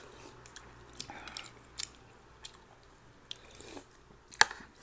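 Close-up eating sounds: chewing pork rib nilaga and rice, with light clicks of metal spoons against plates and one sharp click near the end.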